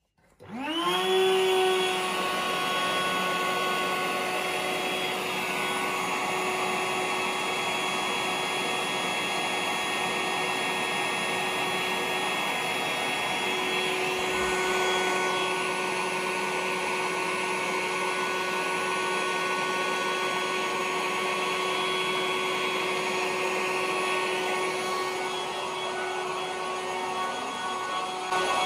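Electric air pump switched on: its motor spins up within about a second to a steady whine and runs on at one pitch, sagging slightly near the end.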